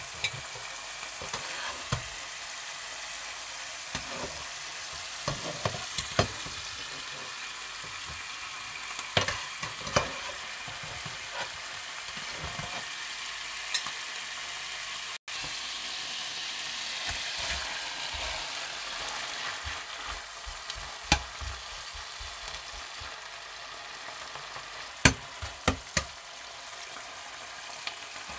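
Prawns simmering in a sauce in a frying pan, sizzling steadily, with sharp clicks and scrapes from a metal slotted spatula. The loudest clicks come in a quick cluster near the end.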